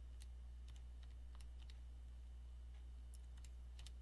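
Faint, scattered clicks of calculator keys being pressed, over a steady low electrical hum.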